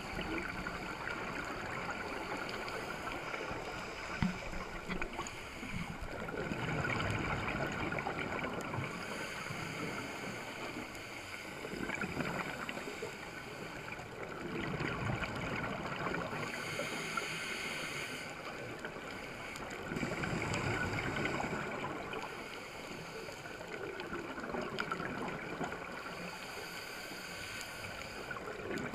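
Scuba diver breathing underwater through a regulator: exhaled bubbles gurgle and rumble in swells every four to six seconds.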